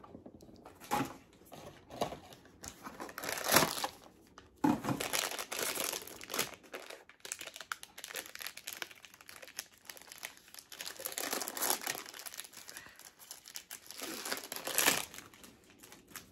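Crinkly packaging of a blind-box collectible figure being handled and pulled open by hand: irregular bursts of crinkling and tearing, loudest a little over three and a half seconds in and again near the end.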